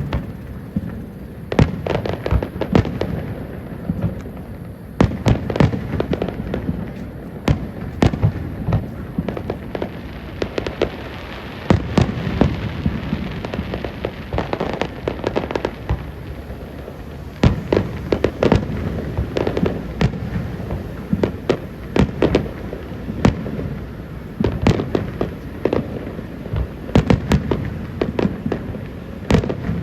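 Fireworks display: a continuous run of bangs and booms from bursting shells, with crackle between them and no let-up.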